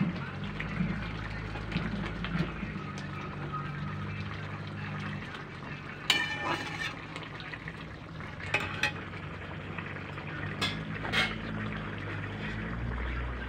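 Vegetable curry simmering and sizzling in a metal kadhai. From about six seconds in, a spatula stirs it, scraping and knocking against the pan a few times.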